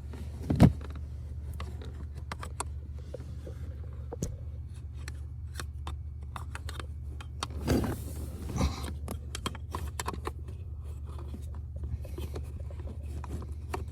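Scattered small clicks, scrapes and knocks of a new blower motor resistor being handled and fitted into its place under a car's dashboard, with a sharp knock about half a second in and a louder scrape around the middle. A steady low hum runs underneath.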